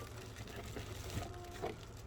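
Faint handling of a cardboard box and its packing, with soft rustles and small clicks and a brief squeak about one and a half seconds in.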